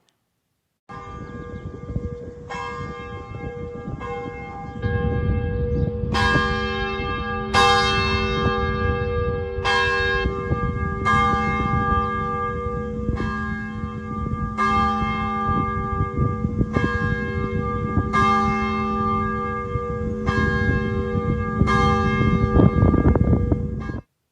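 Church bell ringing, struck over and over about every second and a half, each stroke ringing on into the next, cutting off abruptly near the end.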